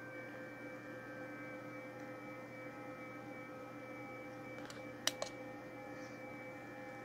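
Low, steady electrical hum with several constant steady tones from nearby electronic equipment. Two or three sharp clicks come about five seconds in.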